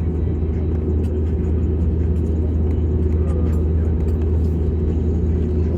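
Steady low rumble of an Airbus A320neo's engines and airframe, heard from inside the passenger cabin.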